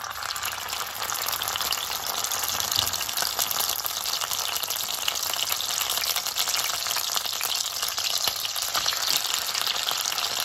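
Coconut-milk-soaked cassava bammy frying in shallow oil in a stainless steel pan: a steady sizzle with fine crackling.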